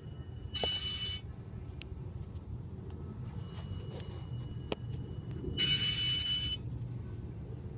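BMW 335i making its strange noise over a steady low hum: a thin, high whistle comes and goes. Two loud hissing bursts, each under a second, come about five seconds apart.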